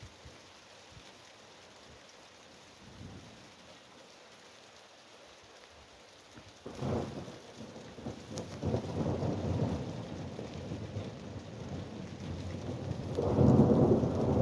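Light rain falling, then thunder breaks about halfway through and rolls on in a long low rumble that grows loudest near the end.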